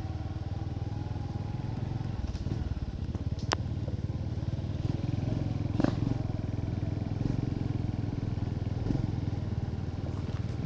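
Small motorcycle engine running steadily while riding along a rough dirt road, with a couple of sharp clacks from bumps.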